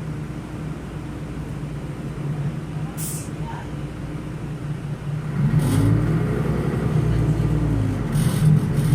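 Solaris Urbino 12 LE Ü city bus's DAF inline six-cylinder turbodiesel, heard inside the passenger cabin: a steady low hum, then from about five seconds in it grows louder and its pitch rises and falls as the bus accelerates through the ZF Ecolife automatic. A short hiss comes about three seconds in.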